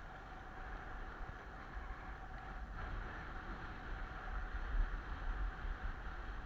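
Skis sliding over groomed piste snow, a steady rushing hiss, with wind rumbling on the microphone underneath; it grows a little louder about halfway through.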